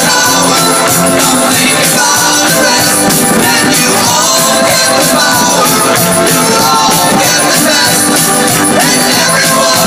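Loud rock-style music with singing and a steady drum beat.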